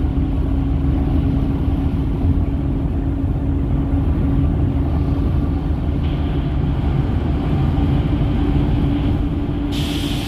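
Steady engine and road rumble inside a moving bus, with a constant droning hum. A higher hiss joins about six seconds in and turns brighter near the end.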